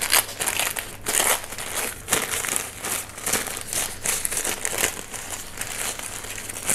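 Sheets of packing paper crinkling and rustling in quick, irregular handfuls as a paper-wrapped plant is unwrapped by hand.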